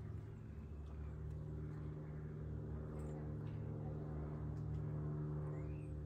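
A low, steady mechanical hum from a running motor, with a few faint clicks.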